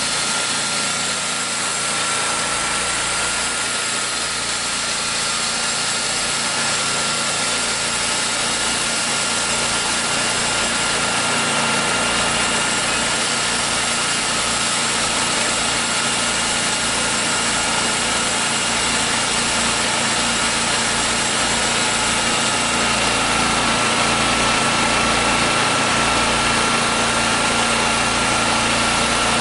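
Gas engine of a TimberKing portable sawmill running steadily, with a constant high whine over the engine noise.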